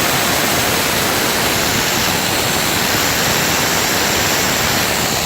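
Electric drill boring a hole into a wall, a hell of a lot of noise, with a vacuum cleaner running right beside the bit to suck up the dust. The noise is loud and steady throughout.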